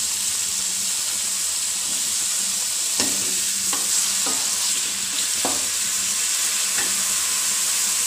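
Sliced onions sizzling steadily in hot oil in a metal kadhai. From about three seconds in, the spatula knocks and scrapes against the pan several times as they are stirred.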